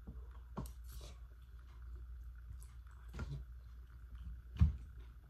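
A person eating instant noodles: short slurping and chewing sounds, then the fork going back to the plate and a short thump about four and a half seconds in, the loudest sound, over a steady low hum.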